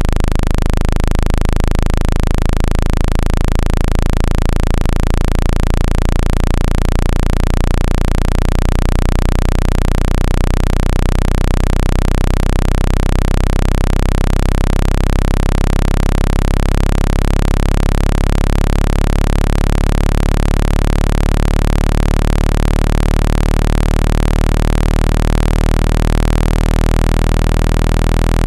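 Synthesized speaker-cleaning tone, played to shake water out of a phone speaker: a loud, steady low-pitched hum with many overtones and a hiss over it.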